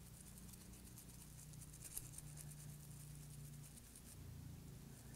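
Faint, rapid bristle scratching of a toothbrush scrubbing an alcohol-wet iPhone logic board, with one sharper tick about two seconds in and a low steady hum underneath.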